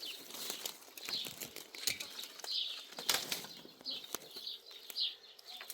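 Irregular rustling and light clicks and knocks, with short high chirps scattered through.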